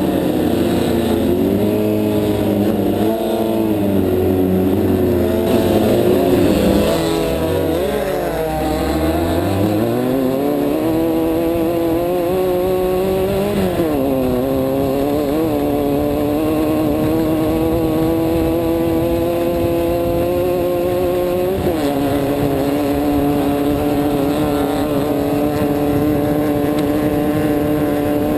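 Off-road race car engine heard from inside the car, revving up and down unevenly for the first several seconds, then pulling steadily. The pitch drops twice at gear changes, about halfway and about three-quarters through, and the engine then runs at steady high revs.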